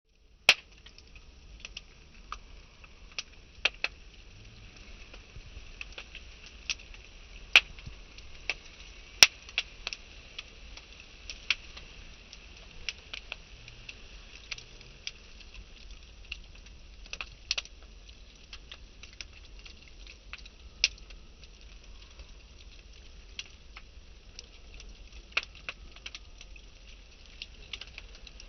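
Split logs burning in a metal fire pit, the wood crackling with irregular sharp pops over a steady faint hiss.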